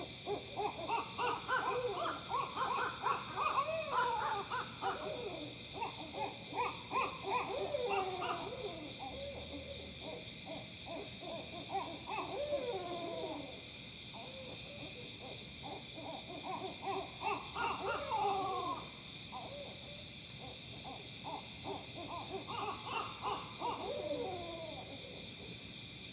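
Barred owls caterwauling: four bouts of rapid, excited hoots and cackles with falling, slurred notes that sound like monkeys. Steady insect trilling runs underneath.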